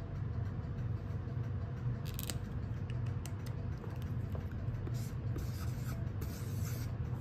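Felt-tip marker scratching and squeaking in short strokes on a sheet of paper on a table, mostly from about five seconds in, over a steady low hum.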